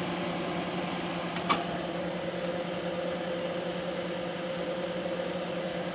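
A steady machine hum made of several constant tones, with one faint click about a second and a half in.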